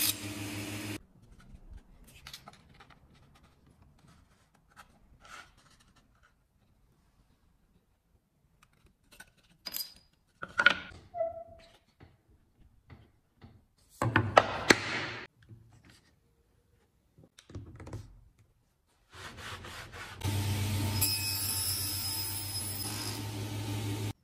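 Woodworking power tool running steadily, then stopping; wooden knocks, clicks and handling sounds follow, with a short loud burst from the tool partway through. Near the end the tool starts again and runs steadily.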